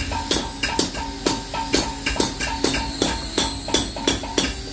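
Bench drill press boring into a motorcycle exhaust muffler to open it up and reach the baffle. The bit chatters in a steady rhythm of about four ticks a second over a ringing cutting squeal.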